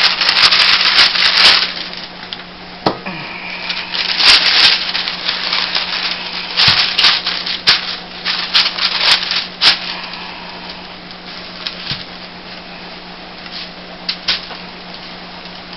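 Rustling and crinkling of thin plastic gloves and a plastic sheet, with scattered sharp clicks and taps of a plastic mixing bowl, as hands knead and scoop out crumbly bubble-bar dough. The noise comes in bunches: in the first second and a half, around four seconds in, and again from about seven to ten seconds in, then it dies down.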